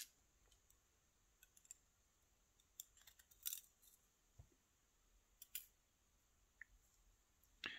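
Faint, sparse clicks and ticks of steel tweezers and small brass lock pins against a lock cylinder and a plastic pin tray, with a small cluster of clicks about three seconds in.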